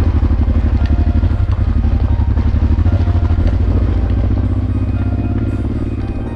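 Honda Transalp's V-twin engine, fitted with an aftermarket exhaust, running at low revs with a fast, even pulse. It eases off and grows quieter over the last second or two.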